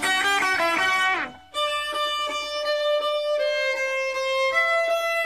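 Background music: a quick run of short notes, then after a brief break a melody of slow, held notes.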